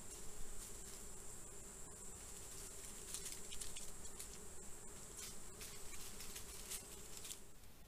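Insects at night: a steady high-pitched trill with a low buzz beneath it. In the middle there is a run of short, faint crackles, and everything cuts off near the end.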